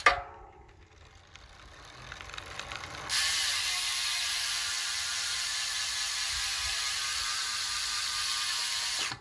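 Rear freehub of a Ridley Dean Fast time trial bike ticking as the wheel is spun by hand, after a sharp knock at the start. The ticking is faint and quickens over the first three seconds, then turns into a loud, steady ratcheting buzz as the wheel freewheels, which stops abruptly near the end.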